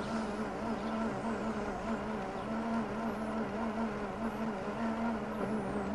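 Toothed-belt drive mechanism of a motorised trick suitcase running: a steady mechanical whir with a low hum that wavers slightly.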